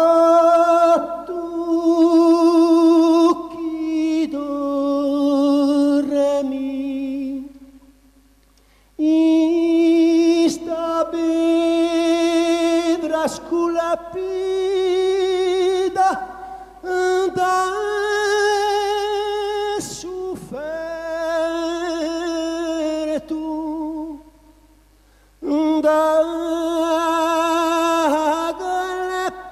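A solo voice singing slow, long held notes with vibrato, unaccompanied, in three phrases broken by short pauses about eight seconds in and again near the end.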